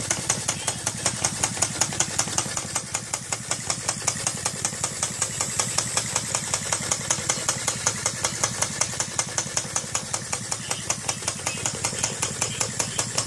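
Handmade brass model vacuum engine running steadily, with an even, rapid clicking from its moving parts at about four beats a second over a low steady hum.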